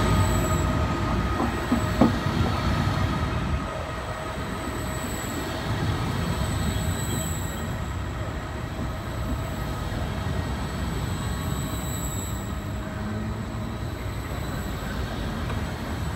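Double-deck Vivalto coaches of a regional train rolling steadily past on the rails, a continuous rumble with faint thin squealing tones from the wheels. A single sharp clunk about two seconds in, and the sound eases slightly after the first few seconds.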